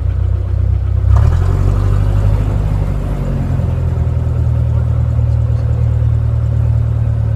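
Light aircraft's piston engine running steadily, heard inside the cabin as a loud low drone. The engine note shifts briefly about a second in, then holds steady.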